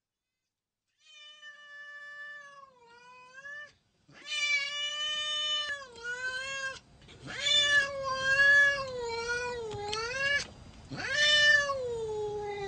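A cat meowing in a run of long, drawn-out yowls that waver in pitch, starting about a second in; the first calls are quieter and the later ones louder.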